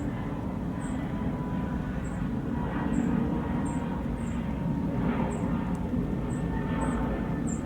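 Steady low rumble of outdoor background noise, with a faint high-pitched chirp recurring at irregular intervals of under a second.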